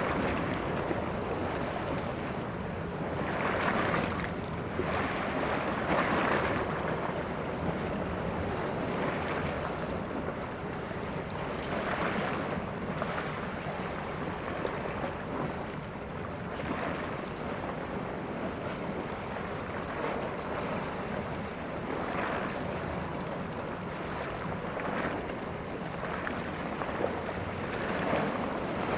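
Wind buffeting the microphone and sea waves washing, swelling every few seconds, over a steady low rumble.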